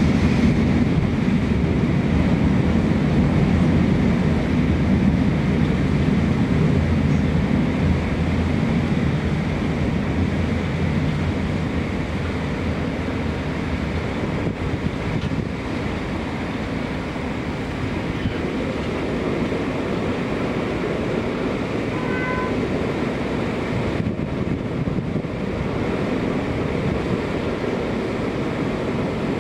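Korail Class 341000 electric multiple unit on Seoul Subway Line 4 pulling into a station: a loud rumble of wheels on rail for the first half that eases off as the train slows. A brief high tone sounds about 22 seconds in.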